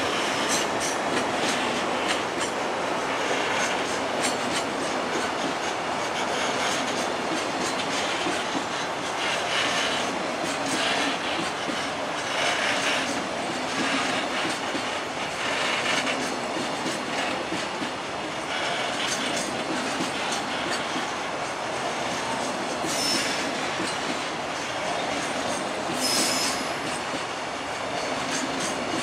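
JR Freight container flatcars rolling past, wheels clattering over rail joints in repeating groups, with two short high-pitched wheel squeals near the end.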